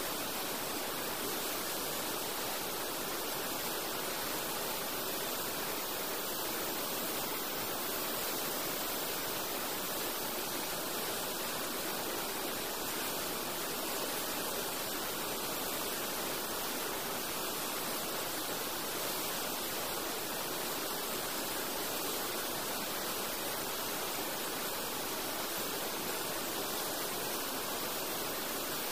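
Steady rushing of a river in flood, an even hiss of running water with no breaks.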